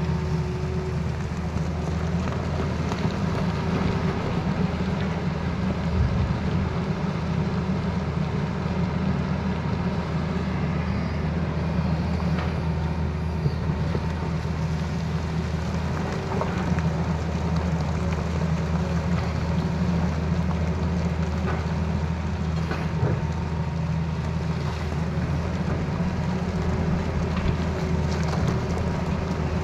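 Tata Hitachi Zaxis hydraulic excavator's diesel engine running steadily under load while it digs rock and soil, with a few brief knocks of rock against the bucket.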